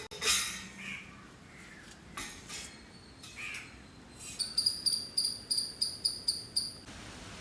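A bird calling: a few short gliding chirps, then a rapid run of high, evenly pulsed chirps, about four or five a second, over the last few seconds.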